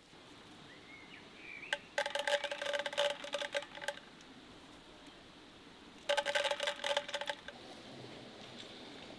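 Black peppercorns poured into a wooden barrel: two bursts of fast rattling clicks with a slight ringing, the first about two seconds long, the second shorter. A bird chirps briefly near the start.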